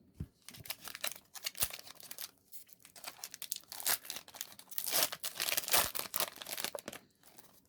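Foil wrapper of a Pokémon booster pack being torn open and crinkled: a long run of irregular crackling rustles, busiest about five to six seconds in.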